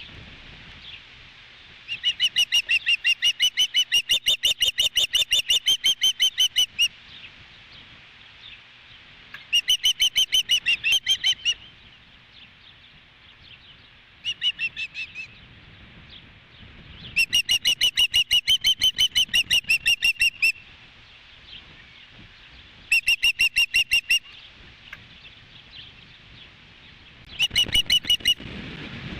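Osprey calling: six bouts of rapid, high-pitched whistled chirps repeated several times a second, the longest lasting about five seconds, with short gaps between bouts.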